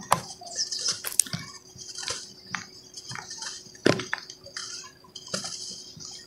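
Hands crushing and crumbling lumps of dry, set cement in a basin: irregular gritty crackling and crunching as chunks break and powder and crumbs fall back, with a few sharper knocks, the strongest about four seconds in.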